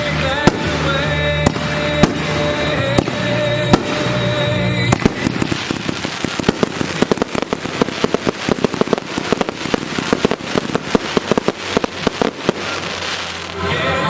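Aerial fireworks going off over music: a few scattered bangs at first, then from about five seconds in a dense, rapid barrage of cracks and booms for about eight seconds, after which the music comes through clearly again.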